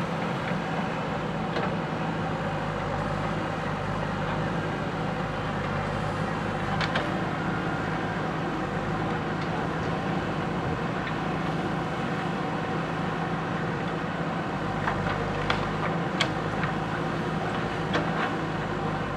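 JCB 3DX backhoe loader's diesel engine running steadily, with a few sharp knocks now and then, most of them in the last few seconds.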